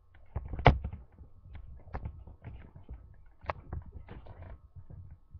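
Irregular knocks and taps with rustling as a person moves about and bumps things close to the microphone. The sharpest knock comes under a second in, another about three and a half seconds in.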